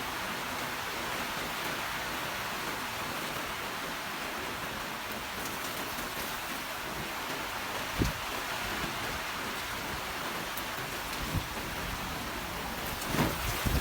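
Steady rain falling and pattering on surfaces, an even hiss. A few short, dull thumps break through it, about eight seconds in, again around eleven seconds, and twice near the end.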